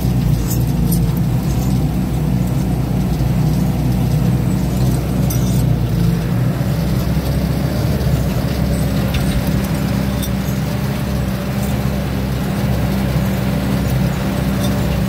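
Diesel engine of a yellow logging machine running steadily, a constant low hum heard from its open, mesh-caged cab.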